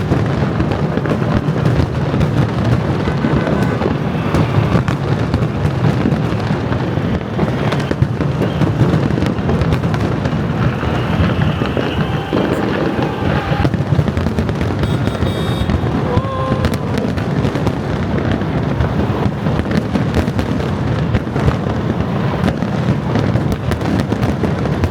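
Fireworks going off in rapid, unbroken succession, a dense continuous crackle of bangs, with a few brief whistling tones about halfway through.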